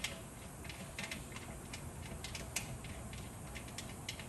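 A metal thumb screw being turned by hand to fasten a motorcycle luggage rack, giving small, irregular metallic clicks and ticks.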